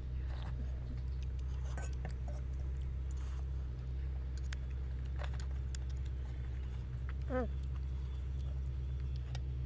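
Eating sounds: a steel fork and spoon clinking against a metal wok, with mouth sounds of eating noodles and broth, over a steady low hum.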